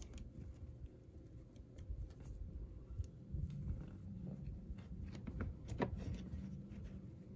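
Small magnetic building blocks being handled and fitted together: scattered faint clicks, one sharper near six seconds, over a low rumble of handling noise.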